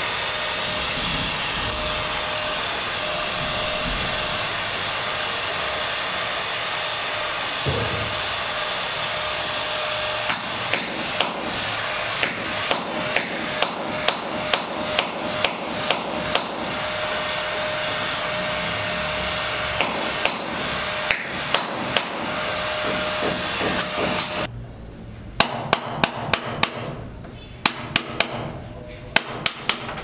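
Hammer striking a steel chisel into a concrete wall: loud, sharp strikes in quick succession over the last few seconds. Before that, lighter hammer taps at about two a second come over a steady hiss.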